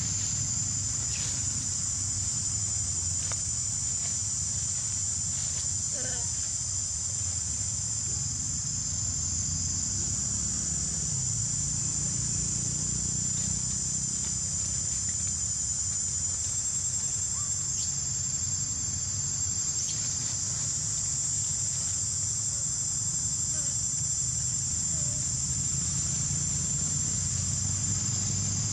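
Steady, high-pitched drone of insects, with a low steady rumble underneath and a few faint ticks.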